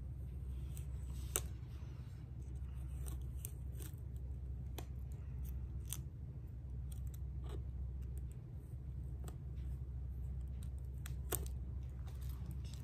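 Metal tweezers picking and peeling adhesive vinyl stencil pieces off a painted wooden board: scattered small clicks and light scrapes, the sharpest about a second and a half in and again near the end.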